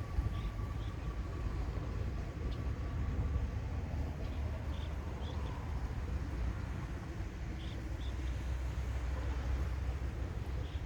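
Steady low rumble with a faint high tone that fades out after a few seconds, and faint short chirps a few times.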